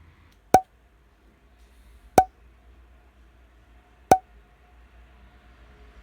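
Three sharp knocks, each leaving a short ringing tone, spaced about one and a half to two seconds apart.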